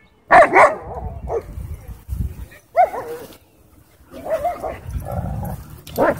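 Dogs wrestling roughly, with short yips, whimpers and barks in bursts, loudest just after the start and again about three seconds in.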